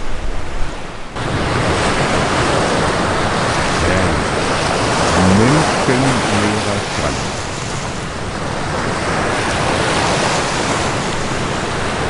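Surf washing onto a sandy beach, a steady rushing noise, with wind on the microphone; a faint voice comes through briefly in the middle.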